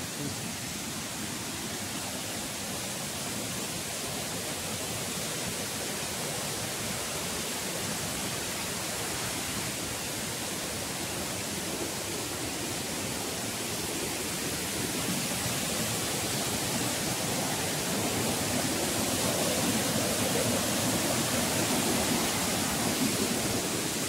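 Steady rushing noise of a waterfall, growing louder over the second half as it gets nearer.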